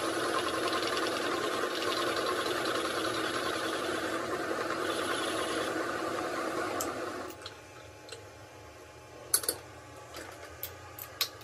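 Metal lathe running steadily as its tool bit cuts a metal hydraulic fitting, stopping about seven seconds in. After that come a few sharp metal clinks, the loudest pair shortly after the stop, as the chuck key is fitted into the chuck.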